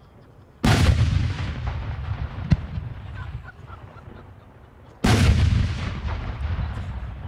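Two aerial firework shells bursting with loud bangs about four seconds apart, each trailing off in a long rolling echo. A single sharp crack comes between them, about two and a half seconds in.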